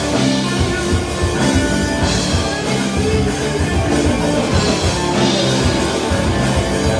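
Rock music with drums and electric guitar, an instrumental stretch with no singing.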